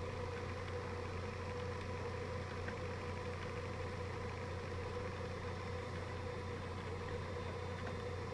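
Function generator's sawtooth-wave output playing through headphones: a steady buzzing tone with many overtones, held at one pitch and level, over a low hum.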